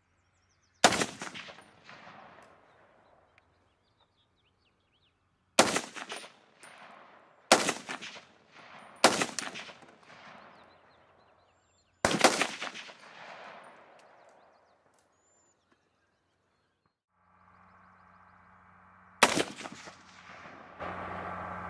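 Five single shots from an FN SCAR 17S 7.62×51 mm rifle, spaced one to five seconds apart, each with a long echoing tail. After a pause a steady hum starts, and near the end one shot from an AR-15-type rifle rings out.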